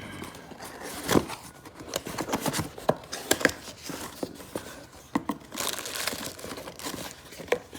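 Packaging and small parts being handled: crinkling and rustling with scattered sharp clicks and light knocks, and a stretch of louder rustling about six seconds in.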